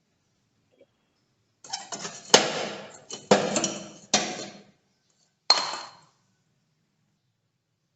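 Hard lamp parts, metal or glass, clinking and knocking against each other and a work surface: about five sharp strikes, each ringing briefly, the last with a clear high ring.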